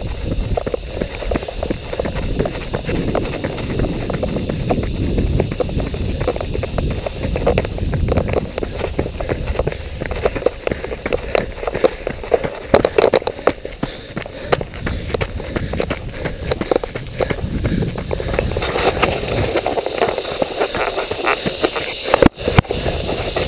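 A runner's footfalls on a dirt trail, an irregular run of thuds with rubbing and jostling noise, picked up by a body-worn action camera. The sound cuts out briefly near the end.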